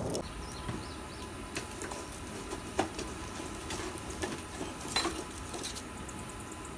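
A few scattered light clinks and knocks as blacksmith tongs move steel in a charcoal forge fire, over the faint steady hum of the forge's electric blower.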